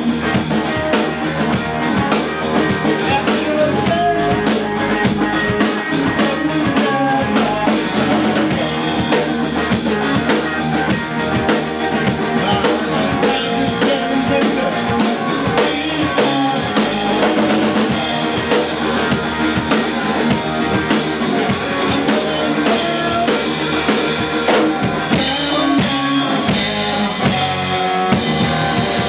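Live blues-rock trio playing: electric guitar, electric bass guitar and drum kit, with kick drum and snare driving a steady beat.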